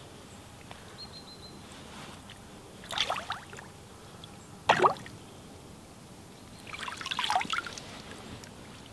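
Water splashing as a pike is released by hand into shallow water: three short splashes, the sharpest and loudest halfway through, with dripping between them.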